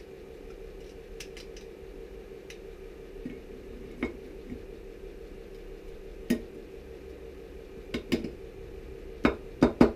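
Small metal parts and hand tools clicking and clinking on a workbench as a retaining clip is worked into a motorcycle final drive housing. There are a few scattered sharp clicks, then several louder clinks in quick succession near the end, over a steady background hum.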